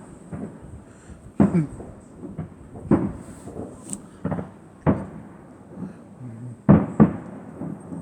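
Fireworks going off: a string of aerial shell bursts, sharp bangs every second or two, with two in quick succession near the end.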